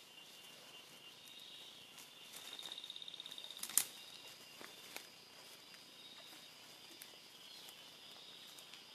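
Faint forest insects trilling in a steady high drone, with a rapid pulsing trill from about two to three and a half seconds in. A single sharp crack comes just under four seconds in, followed by a few light clicks.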